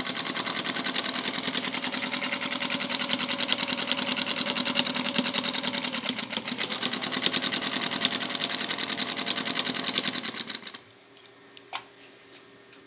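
A 1950 Zündapp sewing machine running at speed, its needle mechanism giving a rapid, even clatter that stops suddenly near the end, followed by a few faint clicks.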